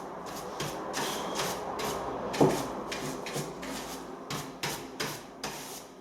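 Hand brush sweeping dirt and debris off a timber floor joist in quick, uneven strokes, with a louder knock about two and a half seconds in.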